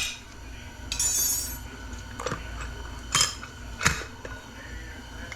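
Metal parts of a 4L60 automatic transmission clinking as they are handled and set down. A brief metallic ring comes about a second in, followed by three sharp clinks.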